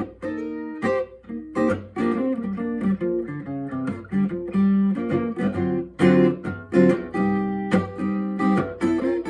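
Guitar playing an instrumental passage of picked and strummed notes.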